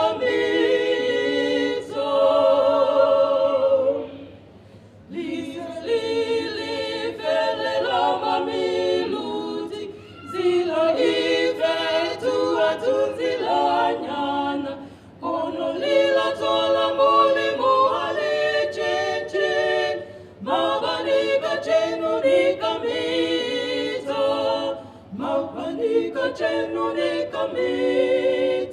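A cappella gospel singing by a small group of women into microphones, several voices in harmony. The phrases break briefly about every five seconds.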